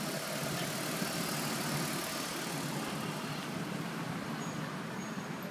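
Steady hum of car engines and street traffic.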